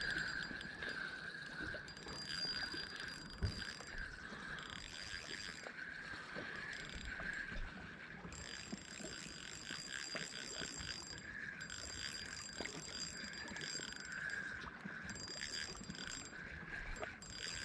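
Spinning reel being cranked steadily, its gears whirring with fine ticking as a lure is retrieved.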